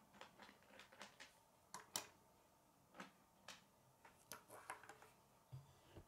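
Plastic K'nex connector pieces clicking and tapping as they are handled and set down on a wooden tabletop: a string of faint, irregular clicks, the sharpest about two seconds in, and a duller knock near the end.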